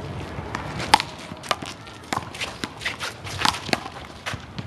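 Handball rally: a small rubber handball is slapped by hand and smacks off the wall and court, giving about a dozen sharp, irregularly spaced cracks, the loudest about a second in.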